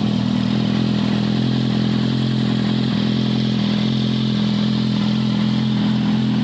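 Kawasaki Z800's inline four-cylinder engine idling steadily.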